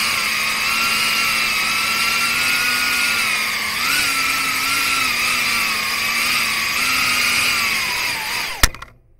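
BetaFPV Pavo30 cinewhoop's 3800 KV brushless motors and ducted propellers whining steadily in flight, the pitch wavering with throttle. Near the end the pitch sags, a single sharp knock sounds, and the whine cuts out.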